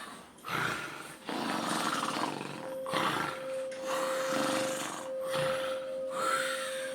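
Loud, harsh snoring: rasping breaths one after another, each about a second long. A steady tone comes in about two and a half seconds in.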